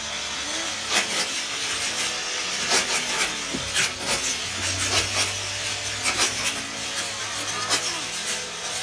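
Plastic toy race-track pieces being handled and fitted together: irregular sharp clicks and knocks, about one or two a second, over a rustling rub of plastic.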